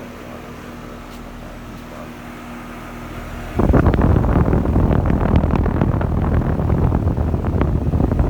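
Heat pump outdoor unit running in cool mode with a steady hum. About three and a half seconds in, a sudden loud, rough rush of air buffeting the microphone sets in and continues.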